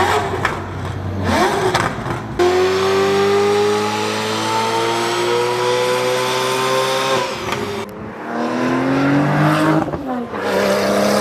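Ferrari F8 Tributo's twin-turbo V8 making a full-throttle pull on a chassis dyno, its pitch climbing steadily for about five seconds before cutting off. Shorter rising engine revs follow near the end.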